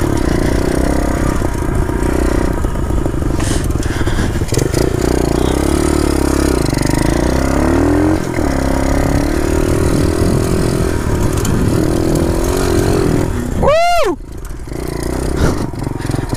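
Pit bike engine revving up and down as it is ridden over grass, with wind rumble on the microphone. Near the end one sharp rev rises and falls, and then the engine drops back quieter.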